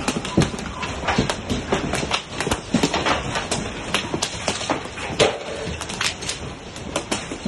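Large hailstones pelting down and striking hard surfaces and the ground in a rapid, irregular clatter of sharp cracks and knocks, several a second, over a steady noise from the storm.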